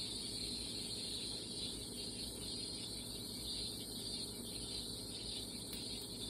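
Burger patties sizzling in a frying pan, a steady high hiss.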